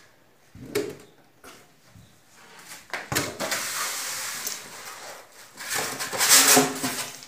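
Packaging being handled around a flat-pack wooden panel: two or three light knocks of the board, then a long rustling scrape of foam and cardboard packing, loudest a little before the end.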